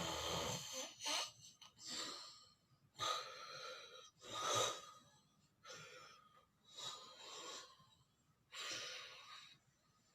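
A person snoring in their sleep: a run of rasping, wheezy breaths in and out, about seven in ten seconds.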